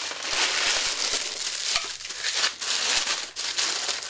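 Thin clear plastic wrapping crinkling and rustling as it is pulled and handled off a packed statue base, going on with a few brief pauses.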